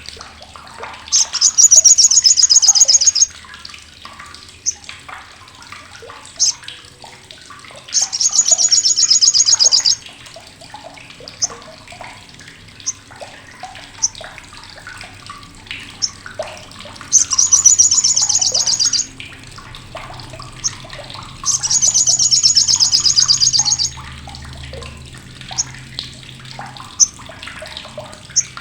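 Olive-backed sunbird (sogok ontong) giving its loud, rough, sharp chatter in four bursts of about two seconds each, very fast and high-pitched, with scattered single chips between the bursts.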